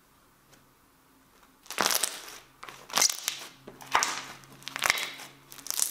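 Purple glue slime being folded and pressed down by hand, crackling and popping as trapped air bubbles burst. The pops begin about two seconds in and come in loud bunches roughly once a second.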